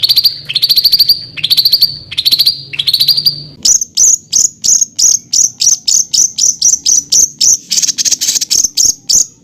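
A songbird calling in rapid, harsh bursts: a string of short high trills about half a second each, then from about three and a half seconds in a fast series of sharp, high single notes at roughly three a second. This is the dense, rough 'tembakan' style of song used as a training recording for cage songbirds.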